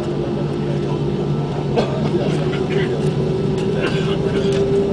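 Airbus A320 jet engines and cabin air heard inside the cabin, a steady hum with a tone that rises slightly in pitch in the second half.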